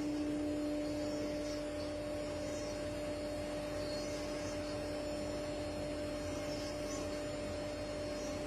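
CNC router spindle running at a constant speed with a steady whine over an even hiss, as the machine carves wood.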